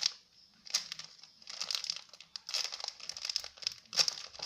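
Crinkling of packaging being handled, in several short rustles about a second apart.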